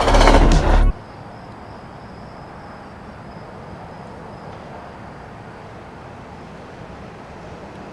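A loud passing train cuts off abruptly about a second in, leaving quiet night ambience with crickets chirping steadily and a faint low hum.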